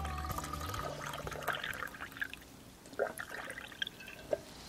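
Faint trickling and sloshing of liquid with a few light clinks, from a cup of freshly made clam miso soup being handled.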